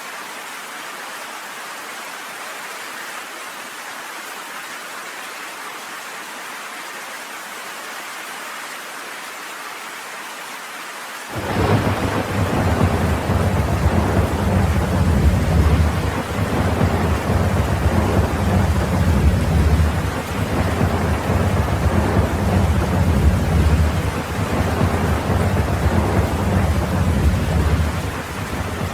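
Steady rain falling, then about a third of the way in a sudden loud, rolling thunder rumble begins and carries on under the rain, swelling and easing.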